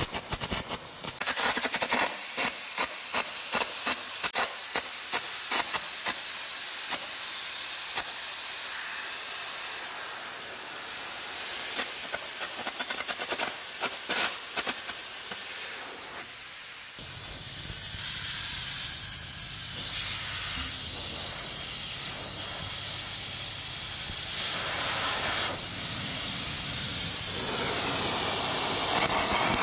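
Carbon air arc gouging steel: a loud compressed-air hiss with the arc crackling and spitting as molten metal is blown out. It is cutting away under the piston around a seized nut to open a gap for a wedge. A little past the middle a low hum joins in.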